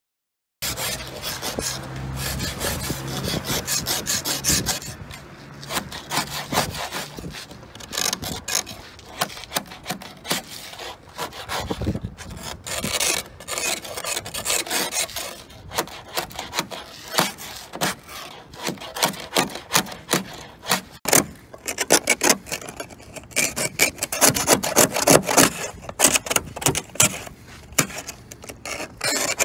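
Hand ice scraper rasping a glaze of freezing-drizzle ice off a car windshield in quick, repeated strokes, loudest in the last several seconds.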